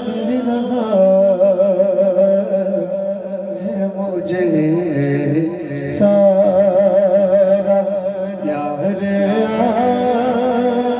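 Men singing an Urdu naat unaccompanied: a lead male voice holds long, wavering notes in two phrases, starting about a second in and again about six seconds in, over a second male voice holding a steadier low note.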